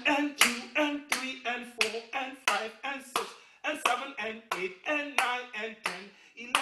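Hands clapping in a steady rhythm, about three claps a second, with a man's voice chanting between the claps.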